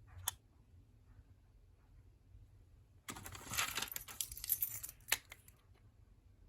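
Handling noise: a sharp click just after the start, then about two and a half seconds of crinkling and rustling with scattered clicks, like packaging being pulled away from an object.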